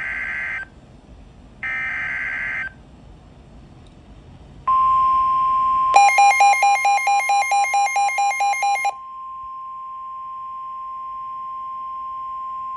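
Midland WR-120 weather radio receiving a NOAA Weather Radio alert. It opens with two short bursts of warbling digital SAME header data. Then comes the steady 1050 Hz warning alert tone, which means a warning is being broadcast, with the radio's own rapid alarm beeping sounding over it for about three seconds.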